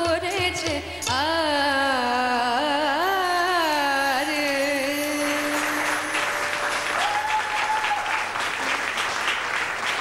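A woman sings the closing phrases of a Bengali song, with winding ornamented runs, ending on a held note about five seconds in. Applause then breaks out and carries on to the end.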